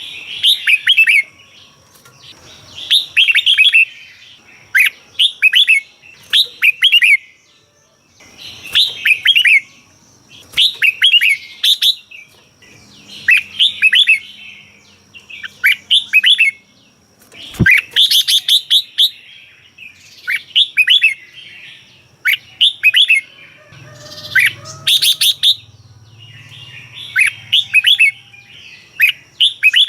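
Red-whiskered bulbul singing: short, quick phrases of warbling notes, repeated every second or two. A single sharp click a little past halfway.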